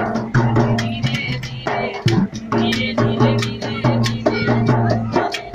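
Hand drums played in a brisk, steady rhythm, over a held low tone that breaks off briefly about two seconds in.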